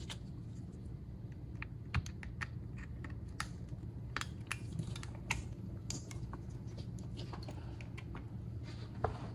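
Scattered light clicks and taps of small hand tools and the opened phone being handled on a repair bench, over a steady low hum. A sharper click comes about two seconds in.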